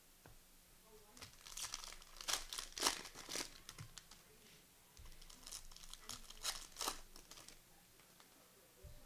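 Plastic wrapper of a trading card pack being torn open and crinkled. The crinkling comes in two spells, from about a second in and again from about five seconds in.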